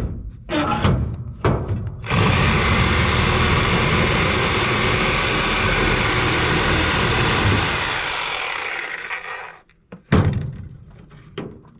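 Power tool cutting into the steel casing of an air-conditioner part: a few knocks, then the tool runs steadily for about seven seconds and winds down when released, followed by a single loud knock.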